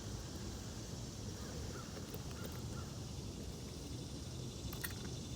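Steady outdoor background noise, with a few faint clicks near the end.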